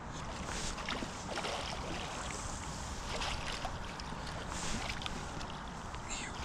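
Water splashing and sloshing as a carp is drawn in a landing net through the shallows to the bank, with a few brief splashes over a steady wind rumble on the microphone.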